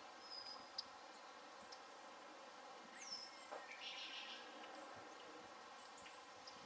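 Faint outdoor ambience: a steady insect hum with a few short, high bird chirps near the start, a falling high call about three seconds in, and a brief burst of warbling chirps just after.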